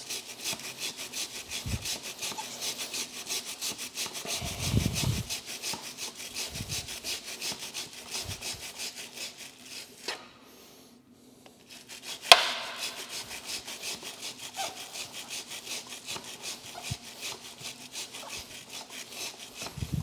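Rapid back-and-forth scrubbing of a motorcycle drive chain wet with chain cleaning fluid, scratchy strokes several times a second. The scrubbing stops for about two seconds around the middle, there is a single sharp knock, and then it resumes.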